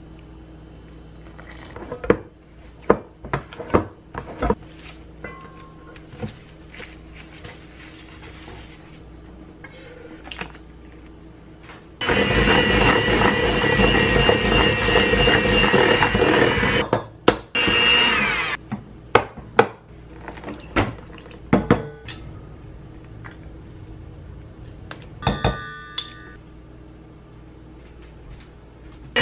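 Electric hand mixer running steadily with a high whine for about five seconds midway, then briefly once more. Scattered knocks and clinks of utensils against a stainless steel mixing bowl come before and after.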